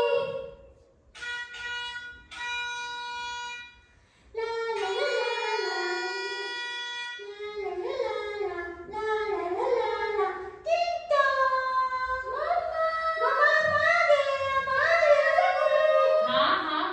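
A song: two or three long, steady notes about a second in, then a voice singing a wavering melody through the rest.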